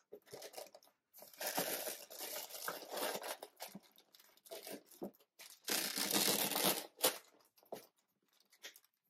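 Rustling and scraping of clothing against a small quilted leather bag and its chain strap as the bag is put on crossbody, in two long stretches about a second and four seconds apart, with a few short rustles between.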